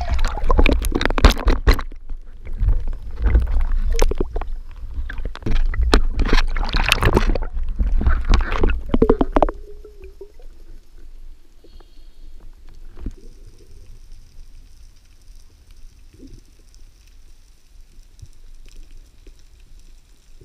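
Water churning and sloshing over an underwater camera in loud, irregular surges. After about nine and a half seconds it drops to a faint, even underwater background.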